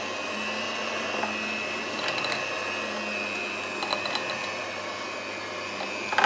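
Electric hand mixer (Philips) running steadily with a constant motor whine as its twin beaters work flour into stiff cookie dough in a glass bowl, with a few light clicks about two and four seconds in. A brief louder rattle comes at the very end.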